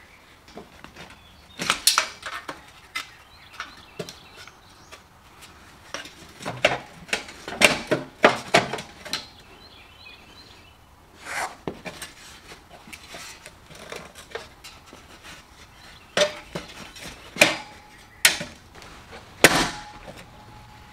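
Irregular knocks and light clatter of hard objects being handled: a dozen or so sharp strikes spread unevenly, some in quick clusters, with only low background between them.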